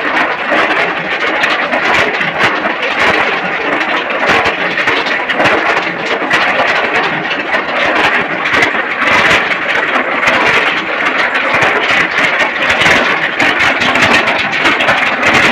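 Small stationary diesel engine running steadily at a gold ore processing shed, with a dense, even mechanical clatter over it.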